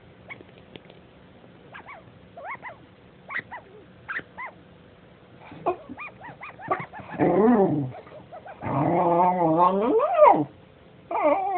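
A dog vocalising: first a string of short, high whimpers, then louder, longer whining growls that waver up and down in pitch, about seven seconds in and again from about nine seconds in.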